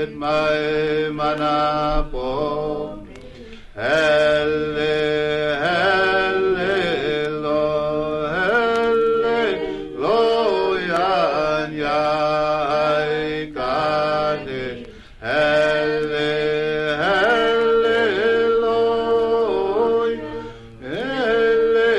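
A song: a voice singing long, wavering held notes in phrases, with a few short breaks between them.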